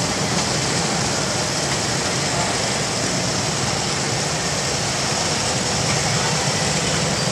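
Several Harley-Davidson police motorcycles with V-twin engines running steadily as they ride slowly past in a line, the engines blending into one continuous sound.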